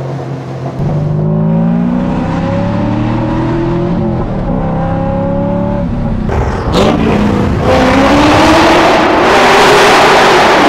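C5 Corvette Z06's LS6 V8 accelerating hard through the gears on long-tube headers and a catless X-pipe exhaust, its pitch climbing, a short break for an upshift a little past halfway, then pulling again and getting louder near the end.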